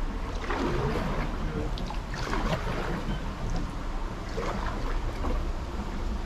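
Canoe paddles dipping and pulling through the water in unhurried strokes, about one every two seconds, with a steady low rumble of wind on the microphone.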